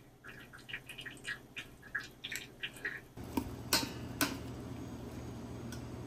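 Light, irregular ticking for the first three seconds; then a steady low hum sets in, with two sharp clinks about half a second apart as a metal ladle knocks against the stainless steel fruit basket of a steam juicer while stirring the cooked pears.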